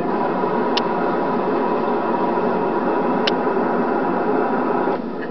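Steady road and engine noise inside a moving car, with two faint clicks; the noise drops a little near the end.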